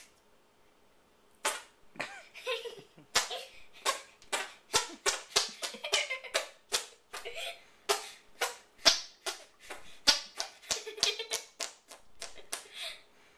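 Armpit farts: a boy's hand cupped in his armpit, pumped by flapping his arm, making a quick run of sharp fart-like pops, about three a second, starting a second and a half in.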